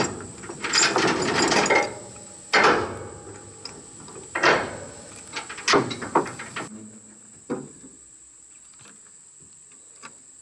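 Steel tie-down chains and chain binders rattling and clanking against a trailer's steel frame as the load is unchained. The rattling comes first, then several single sharp metallic clanks that ring briefly, and it goes quieter near the end.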